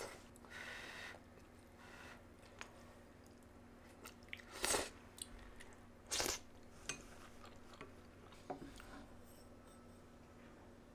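Faint sounds of someone eating udon noodles: a short slurp near the start, then quiet chewing and small clicks. Around the middle come two sharp knocks of tableware, about a second and a half apart, as the wooden chopsticks are put down.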